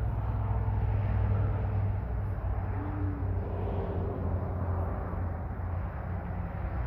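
Steady low rumble of road traffic, engines and tyres running without a break.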